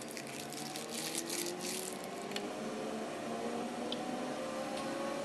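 Machinery of a vacuum-chamber tape-peeling rig running up, with several hum tones that slowly rise in pitch together. A patter of faint crackling clicks comes in the first two seconds.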